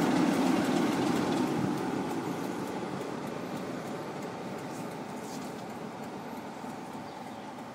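British Rail Class 47 diesel locomotive with its Sulzer twelve-cylinder engine running as it moves away along the track, the sound fading steadily as it draws off.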